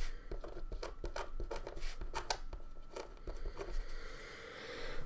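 White pen writing on a sheet of black paper: quick, irregular scratching and tapping strokes as letters are written. The strokes stop about four seconds in.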